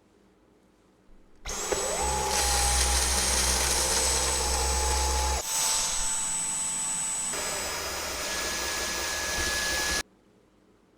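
Cordless stick vacuum switched on, its motor whine rising quickly to speed, then running steadily with a high whine. Its sound shifts twice along the way, and it cuts off suddenly about a second before the end.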